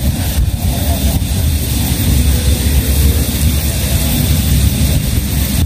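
Wind buffeting the microphone: a loud, uneven low rumble.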